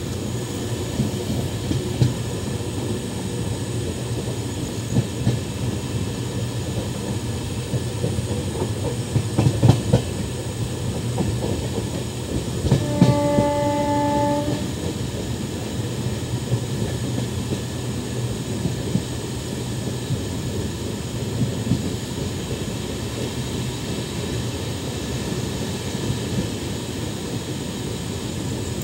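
Express passenger train running, heard from aboard a coach: a steady rumble of wheels on the track with clattering clicks over rail joints. About halfway through, a locomotive horn sounds once on one steady note for about a second and a half.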